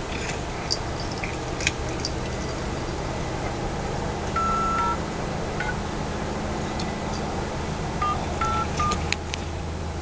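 Mobile phone keypad beeping as a number is dialed: one longer beep about four seconds in, then several short beeps near the end, with light clicks in between over a steady low hum.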